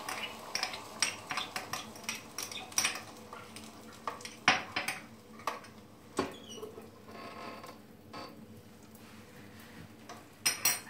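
Scattered light clicks and taps of kitchen utensils and the plastic lid of an electric sandwich toaster being handled, over the faint sizzle of an omelette cooking inside. A quick cluster of louder clicks comes near the end.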